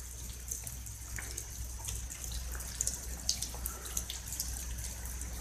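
Rain dripping and trickling steadily, with scattered drops ticking, over a low steady hum.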